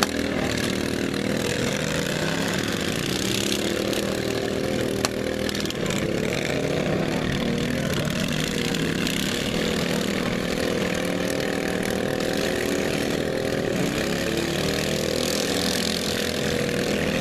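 Several small lawn-mower engines running together, their pitches rising and falling as they rev, with a single sharp knock about five seconds in.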